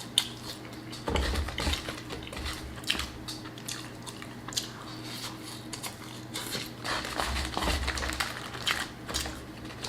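Close-miked chewing and biting of soggy Cajun fries: soft mouth sounds with two spells of heavier chewing, the first about a second in and the second near the end, and many small clicks and rustles.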